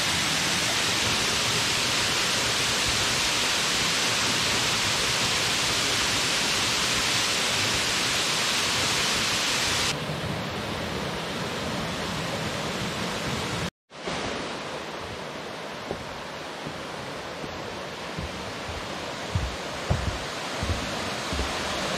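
Steady rushing of a 39-foot waterfall, an even hiss of falling water. About ten seconds in it turns softer and duller, cuts out for an instant near fourteen seconds, and a few soft low thumps come near the end.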